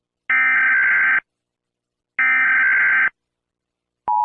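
Emergency Alert System SAME header: two bursts of warbling digital data tones, each about a second long and a second apart. About four seconds in, the steady two-tone EAS attention signal starts, announcing a new warning.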